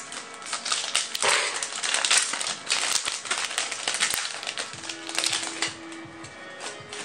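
Yu-Gi-Oh! trading cards being handled and flipped through: a busy run of quick papery flicks, scrapes and snaps, easing off over the last couple of seconds.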